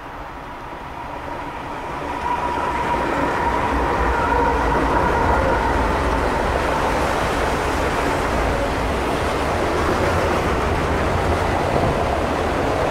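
Freight train of enclosed autorack cars rolling past on the tracks: a steady rumble of wheels on rail that builds over the first couple of seconds and then holds.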